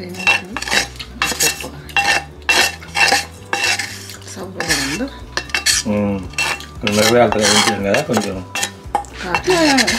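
A metal spoon knocking and scraping against a cooking pan, about two to three clanks a second, as fried food is scooped out. Between about five and eight seconds in there are some squeaky, sliding tones.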